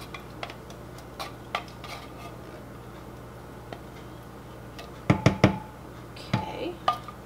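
A wooden spoon scraping condensed soup out of a tin can into a glass measuring cup, with light clicks. About five seconds in come three quick knocks with a short ring, and one more a second later, as the can and spoon strike the rim.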